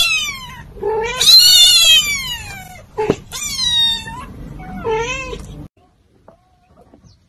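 White kitten meowing loudly and insistently: five high-pitched meows, the second one long and drawn out, ending about a second and a half before the end.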